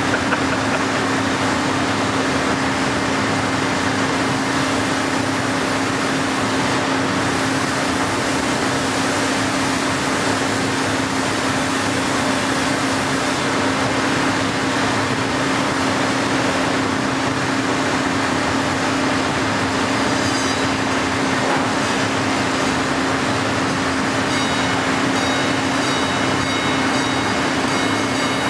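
Heller CNC four-roll hydraulic plate bending roll running as it rolls a steel plate: a steady hum under an even mechanical noise. A few faint high tones join near the end.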